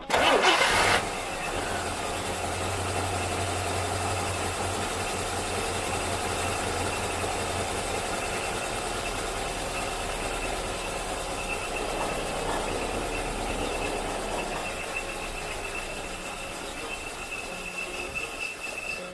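1964 Rambler American's six-cylinder engine running roughly, as one does after sitting a long time, with a loud burst in the first second and then a steady run.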